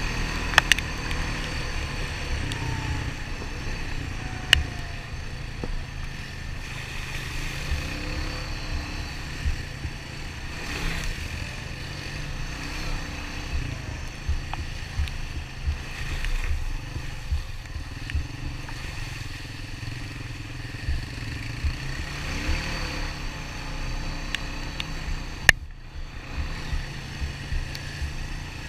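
Honda Rancher 400 ATV's single-cylinder four-stroke engine running steadily, with frequent low knocks and rattles from riding over rough trail and a few sharp clicks.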